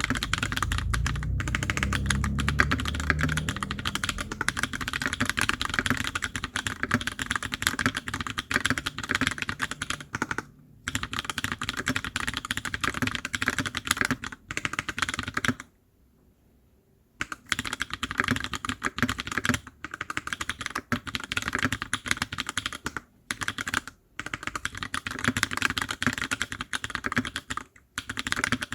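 Steady fast typing on a TX65 custom 65% mechanical keyboard with PBT keycaps, the keystrokes running together in a dense clatter. Typing stops briefly several times, with one longer pause of about a second and a half past the halfway point. A low rumble sits under the keystrokes in the first few seconds.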